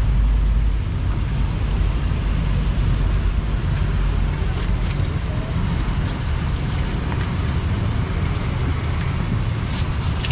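Steady low rumble of street traffic, with a few faint clicks near the end.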